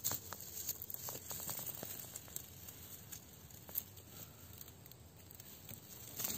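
Faint rustling and crackling of dry twigs and leaf litter with scattered small clicks as a tortoise crawls through it.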